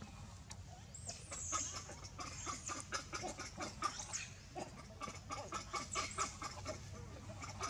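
Animal calls: short notes repeated several times a second, with high thin falling chirps above them.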